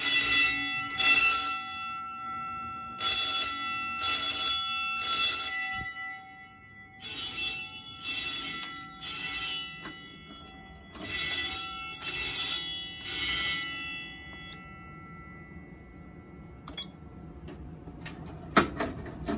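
Pyrotronics fire alarm bell ringing in the temporal-three evacuation pattern: half-second rings about a second apart in groups of three, with a pause of about two seconds between groups, the later groups quieter. The ringing stops about 14 seconds in, and a sharp click sounds near the end.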